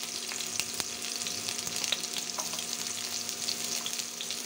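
Chopped onions, green chillies and panch phoran sizzling in hot mustard oil in a kadhai just after the onions go in: a steady hiss with scattered sharp crackles.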